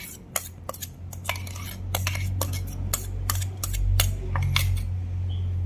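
Metal spoon clinking and scraping against steel cookware in quick irregular strokes as the ground coconut and green chilli paste is scooped into the pot of cooked pineapple. A low steady hum runs underneath from about a second in.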